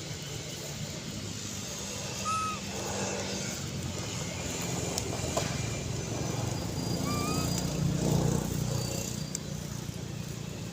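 Steady low engine rumble of a motor vehicle, swelling about eight seconds in, with two short high chirps and a single sharp click.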